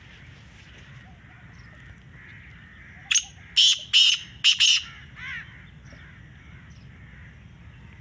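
Black francolin calling: a run of about five loud, harsh, grating notes in under two seconds, starting about three seconds in, followed by a fainter falling note. Under it there is a faint steady background of distant birds and insects.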